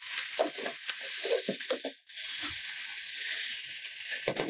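Light, irregular knocks and rubbing from steel down-the-hole hammer parts being handled (the back head and its check valve parts), over a steady hiss.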